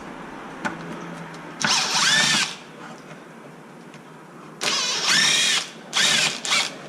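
Small power driver backing out screws from an RC truck's diff cover: three short runs, the motor whine rising and falling in pitch each time.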